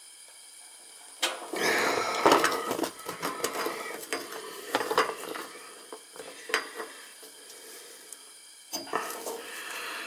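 Steel wrench clinking and scraping against a threaded brass water-heater fitting as it is set and turned. The metal clicks and rattles come in a long bout starting about a second in, then a second shorter bout near the end.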